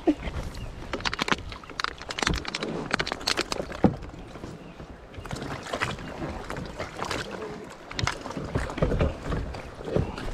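Irregular knocks, rubs and water sounds of people shifting about in a small river boat as they settle in, the knocks clustering in the first few seconds and again near the end.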